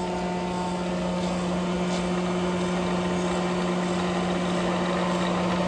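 Cincinnati universal cylindrical grinder running, with a steady hum and a whirr that grows slowly louder as its variable-speed headstock is turned up.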